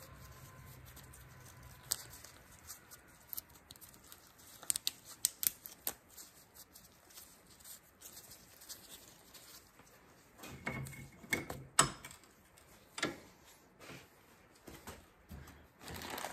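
Scattered light clicks and rubbing as gloved hands work an O-ring on a Kubota B21 hydraulic cylinder's metal gland cap. A few sharper knocks about ten to twelve seconds in.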